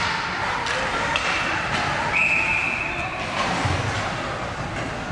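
Ice hockey arena noise, with a referee's whistle blown once in a steady blast of about a second, starting about two seconds in, signalling a stoppage in play.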